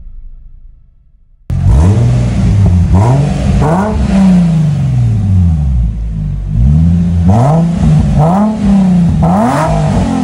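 Infiniti FX35's 3.5-litre V6 revved repeatedly at standstill through its upgraded exhaust with tuned mufflers, loud. The engine speed rises and falls in about eight quick blips and a couple of longer pulls. It starts suddenly after a quiet first second and a half.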